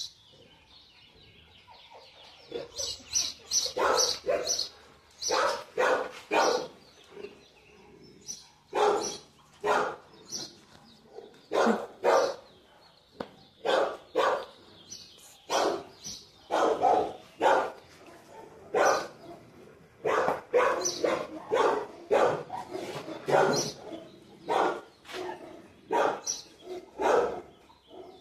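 Dog barking repeatedly in short barks, singly and in quick twos and threes, starting a few seconds in and going on throughout.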